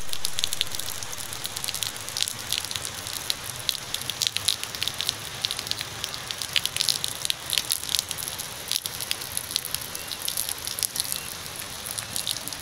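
Steady rain falling close by onto a puddle and wet ground: a dense patter of sharp drop splashes over a constant hiss.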